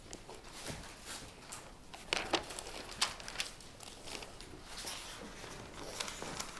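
Thin Bible pages being leafed through by hand: soft paper rustling with a few sharper page flicks around the middle.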